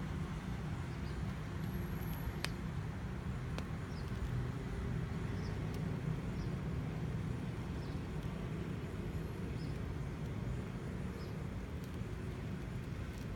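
Steady low background rumble with no speech, and a few faint clicks over it.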